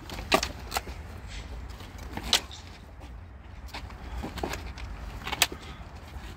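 White synthetic longsword trainers clacking together in sparring: sharp, single clacks at irregular intervals, the loudest about half a second in, about two and a half seconds in, and about five and a half seconds in, over a steady low rumble.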